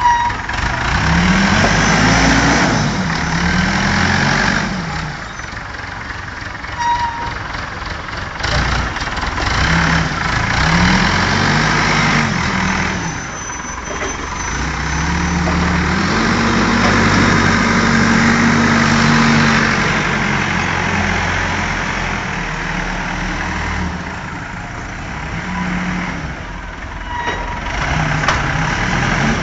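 Godrej forklift's engine running and revving up and falling back in several long swells, as the truck is driven and its hydraulic mast and paper roll clamp are worked.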